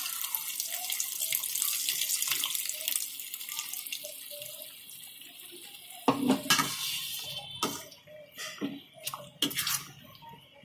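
Tamarind water poured into a hot steel kadai of frying masala, a steady pouring hiss and sizzle. About six seconds in it gives way to a slotted spoon stirring the thin curry, with clicks and knocks against the pan.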